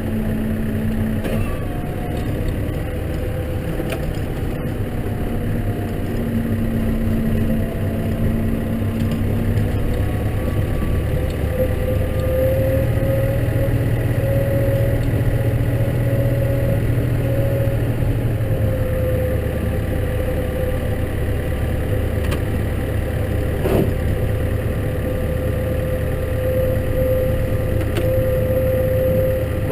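Case tractor's engine running steadily through snow ploughing, heard from inside the cab, with a steady whine over the engine note. The engine note rises and strengthens about twelve seconds in for several seconds, then settles back.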